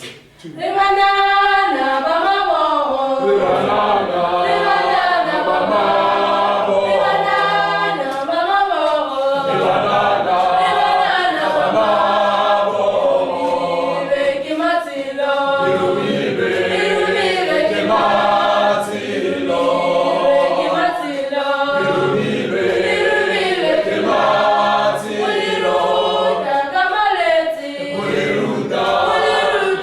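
A group of voices singing together in a choir-style song, beginning about a second in.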